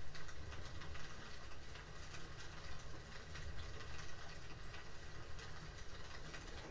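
Quiet room tone: a steady low hum with faint, scattered ticks.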